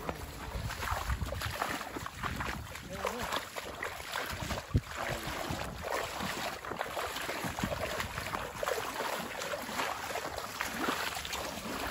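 Boots wading and splashing through shallow floodwater, an irregular sloshing of steps from people walking through it, with one sharp knock a little before the middle.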